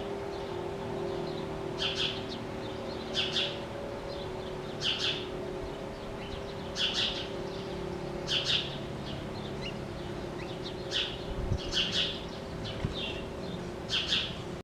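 A bird calling, short double chirps repeated about every second and a half, over a steady low hum.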